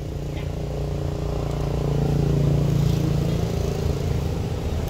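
A motor engine running with a steady hum, growing louder through the middle and easing slightly near the end.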